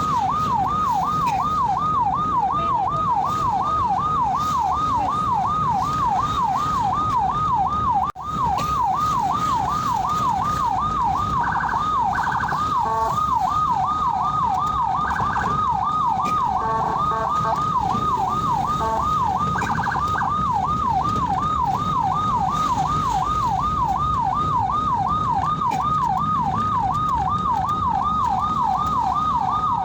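Ambulance siren on a fast yelp, its pitch sweeping up and down about three times a second, over engine and road noise. A few short extra tones sound over it between about 11 and 20 seconds in, and the sound cuts out for an instant about eight seconds in.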